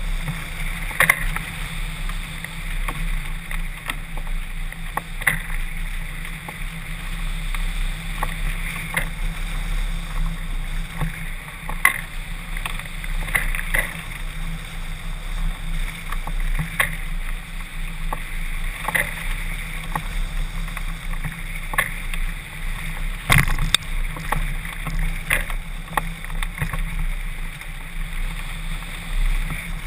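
Wind rushing over a microphone on a camera mounted to a hang glider's wing in flight: a steady rush of air with irregular light ticks and knocks, one stronger knock about three-quarters of the way through.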